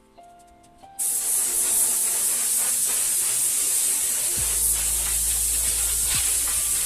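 Steady spray hiss, starting suddenly about a second in, from a spray can or spray gun being used on bicycle parts.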